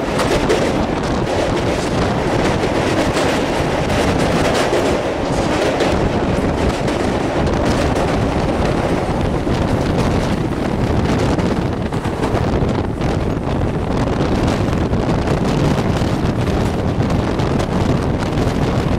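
Passenger train coaches running at speed, a steady rumble of wheels on the rails mixed with heavy wind buffeting the microphone at the open coach door.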